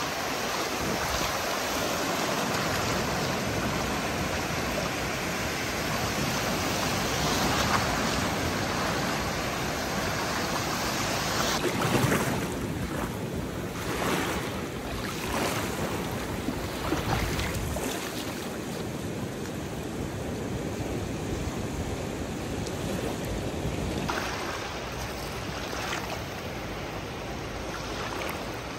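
Sea surf breaking and washing up a sandy beach in shallow water. The rushing noise swells and eases with each wave.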